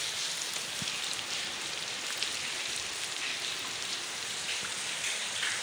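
Heavy rain falling on a flat concrete rooftop, a steady even hiss.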